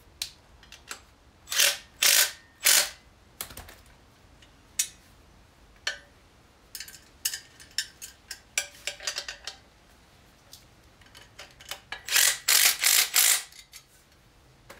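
Cordless impact driver running in short bursts as it tightens the nuts holding a bottle jack to its bracket. There are three bursts about two seconds in and a longer run of bursts near the end, with scattered clicks of metal and tool handling between.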